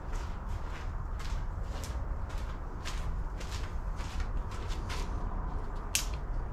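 Footsteps and scattered light clicks of parts being handled, over a steady low rumble, with one sharper click near the end.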